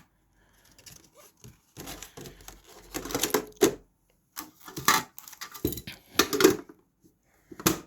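Pokémon card tin and booster packs being handled: irregular clicks, taps and rustles as items are picked up and set down, busiest from about two seconds in.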